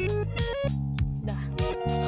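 Background music: a plucked guitar tune over held bass notes, with a steady beat.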